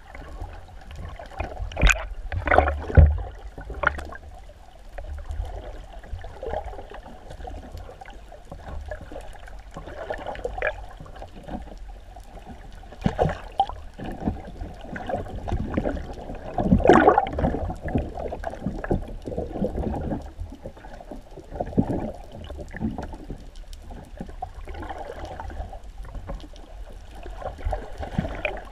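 Muffled water noise heard through an underwater camera housing: sloshing and gurgling, with irregular bubbly bursts and knocks, the loudest a few seconds in and again a little past halfway.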